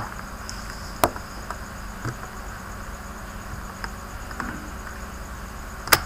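Small clicks and ticks of fingers working a laptop's battery connector loose from its socket on the motherboard, with a sharp click about a second in and the loudest near the end. Underneath runs a steady hiss with a faint, rapid high pulsing.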